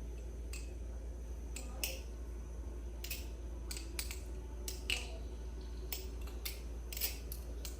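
A balisong (butterfly knife), a clone of a Squid Industries design, being flipped: irregular sharp clicks and clacks as the handles swing around and strike each other and the blade, about fifteen in a few seconds, over a low steady hum.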